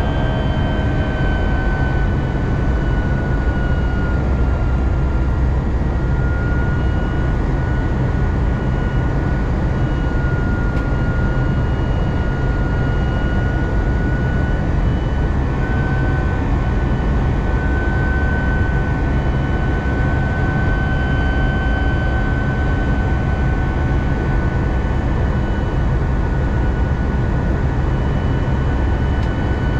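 Airbus A320 jet engine noise inside the cabin: a steady, loud rumble with a high engine whine held nearly level, drifting only slightly in pitch.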